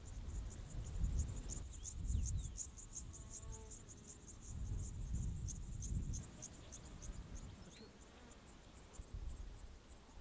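Meadow insects chirping in a fast, even pulse of short high-pitched strokes, densest in the middle and thinning out toward the end.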